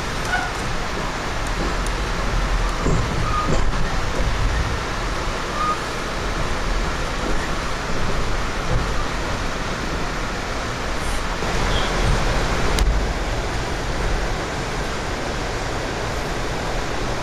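Steady rumble and rush of a moving passenger train, heard from inside an Amtrak Superliner car as it rolls along the track, with a few faint clicks.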